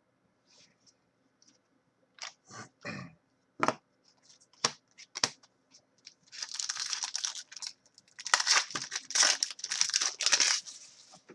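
A few light clicks and taps of cards being handled, then a trading-card pack wrapper being torn open and crinkled in two long stretches over the second half.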